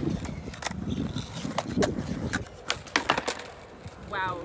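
Skateboard on asphalt: urethane wheels rolling and the deck clacking sharply against the pavement again and again during front shuvit attempts, with the board rolling away after a bail near the end.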